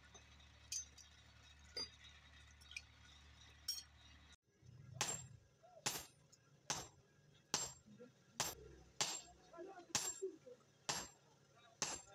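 Hand-forging a red-hot axe head on an anvil: hammer blows land about once a second, each a sharp metallic clink with a short ring. Before them, after a few seconds of low hum and occasional light clicks from the forge fire, the sound cuts off abruptly and the hammering begins.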